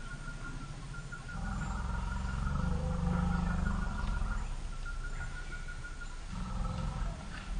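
African forest elephants giving two long, deep rumbles, the first beginning about a second in and the second near the end. These are the agitated rumbles of a startled group huddling together.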